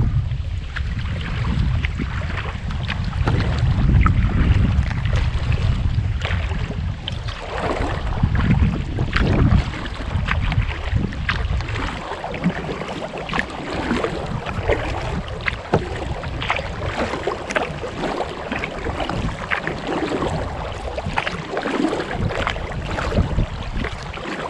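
Wind buffets the microphone with a low rumble for the first several seconds. Then the kayak paddle strokes dominate: water splashing and dripping off the blades in many small, irregular splashes against the lapping water.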